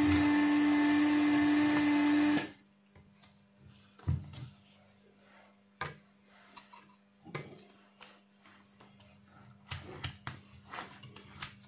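Electric vacuum desoldering gun's pump running steadily with a hum, sucking molten solder off the relay's pins on a circuit board. It cuts off about two and a half seconds in, followed by a few light clicks and knocks as the relay is pulled free and handled.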